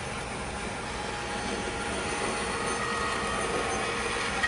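Bandsaw running and resawing a thick board, the blade cutting steadily through the wood with a noise that grows a little louder as the cut goes on.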